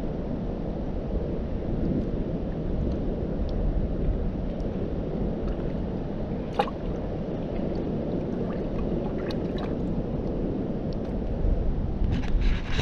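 A gutted fish being rinsed by hand in a bucket of water: soft sloshing with a few small splashes, over a steady low outdoor rumble.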